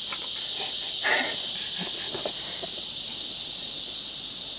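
Steady, high-pitched drone of insects shrilling without a break.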